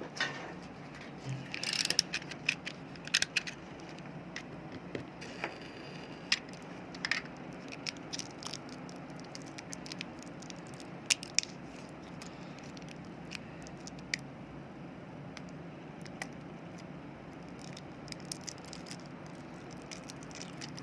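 Irregular clicks, taps and small rattles of hands prying at and handling the plastic casing of a smartphone battery, over a steady low hum.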